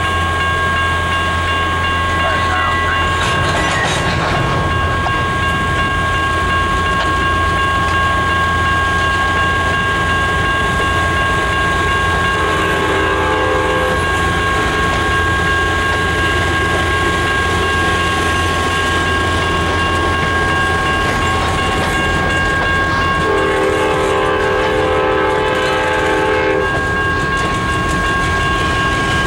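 Freight cars rolling slowly past behind an EMD GP7 diesel switcher, with the low rumble of its running engine and a steady high-pitched squeal throughout. A locomotive horn sounds twice: a short blast about 12 seconds in and a longer one of about three seconds near the end.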